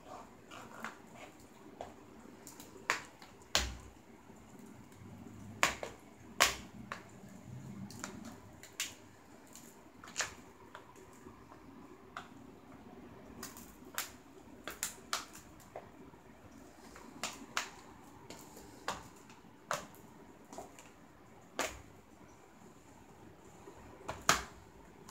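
Irregular sharp cracks and creaks from the plastic casing of a closed Samsung notebook computer flexing under a person's shifting weight as it is stood on, the loudest cracks a few seconds in and near the end.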